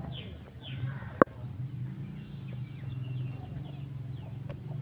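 Birds calling with repeated short, falling chirps over a steady low background hum, with one sharp click about a second in.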